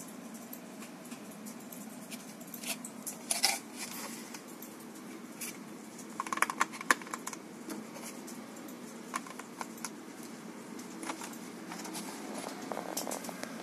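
A clear plastic CPU tray being handled: scattered clicks and crackles of the thin plastic flexing, and light taps as processors are set into its pockets. The clicks come in thicker clusters about three and a half seconds in and again around six to seven seconds in.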